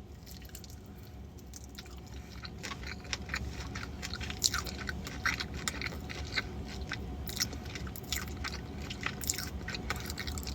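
A person eating chicken wings with her mouth open: close, irregular clicks and smacks of chewing that start up about two seconds in and go on steadily. The wings are soft rather than crispy.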